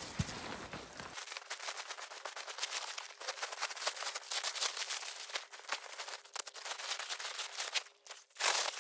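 Dense, irregular crackling and snapping clicks. A low background rumble cuts out abruptly about a second in.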